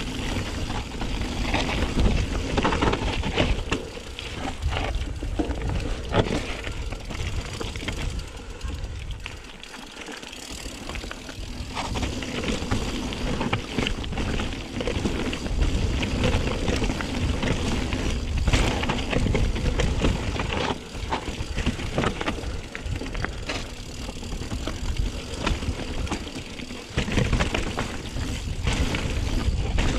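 Mountain bike ridden over a rough trail, heard from a chest-mounted action camera: wind rumble on the microphone and tyre noise, with frequent clatters and knocks as the bike goes over bumps. It is briefly quieter about ten seconds in.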